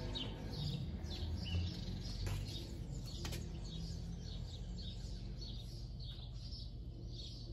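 Birds chirping, many short quick high calls repeating over a low steady hum, with a couple of faint clicks.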